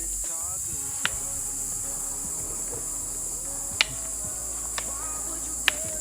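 Steady high-pitched insect chirring, with faint voices in the background and a few sharp clicks scattered through it.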